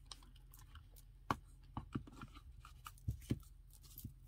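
A flat glue brush dabbing and working Mod Podge into a paper napkin laid over plastic sheeting, making soft, irregular taps and crinkles. A few sharper knocks stand out, the loudest about a second in and two more around three seconds in.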